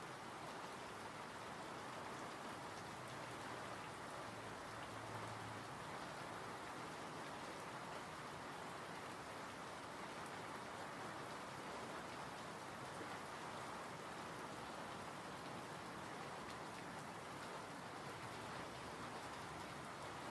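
Steady rain falling and pattering on surfaces, an even hiss of drops that holds unchanged throughout.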